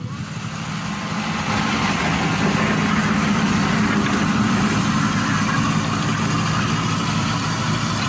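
Crown Sumo combine harvester's diesel engine running steadily as the crawler-tracked machine drives along, growing louder over the first couple of seconds.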